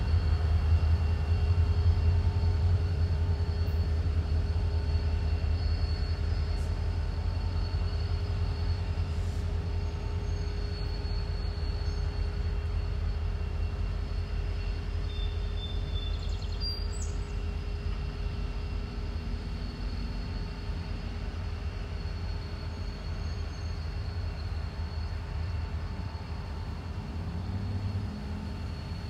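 Norfolk Southern diesel-electric freight locomotive pulling a string of covered grain hoppers slowly away, a deep steady engine rumble that fades gradually as the train recedes.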